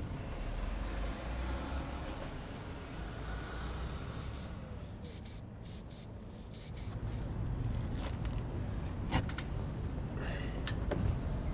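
Aerosol spray-paint can hissing in a quick series of short bursts over a low steady rumble. Near the end come a few sharp clicks and a short rasp as masking tape is pulled off the panel.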